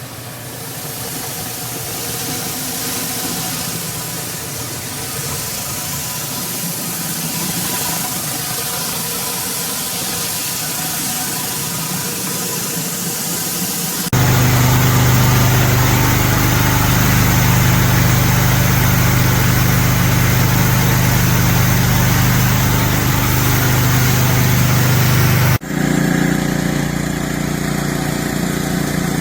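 A 2700 PSI pressure washer running steadily, its engine hum and spray noise continuous. The sound changes abruptly twice, about halfway through and near the end, as separate takes are cut together.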